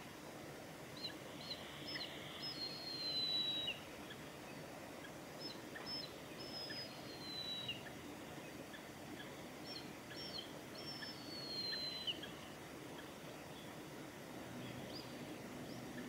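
Juvenile mountain hawk-eagle calling three times, each phrase a few short high notes followed by a long, slightly falling whistle, over a steady background hiss.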